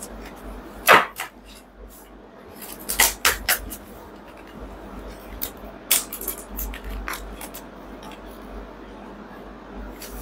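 Scattered light clicks and taps of small objects being handled on a table, with a sharper knock about a second in and a few more around three, six and seven seconds.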